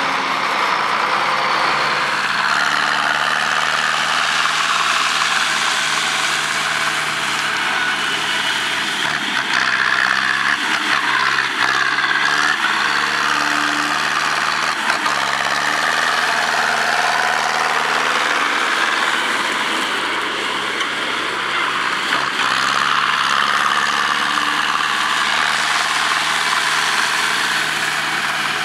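Zetor 7211 tractor's four-cylinder diesel engine running steadily under load while driving a drum mower, over a continuous hiss from the mower and cut grass. The engine note shifts slightly in pitch a few times.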